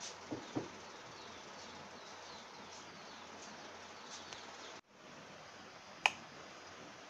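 A single sharp click about six seconds in, a switch on an electrical switch board being flipped, over a steady low hiss. Two soft knocks of handling come right at the start, and faint high chirps sound in the background.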